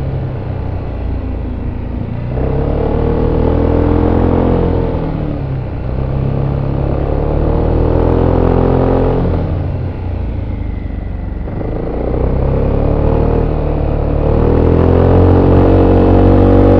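VOGE SR4 MAX scooter's 350 cc single-cylinder engine through its stock exhaust, heard from on board while riding. The engine pulls up and eases off three times, its pitch rising and falling with each, over road and wind noise.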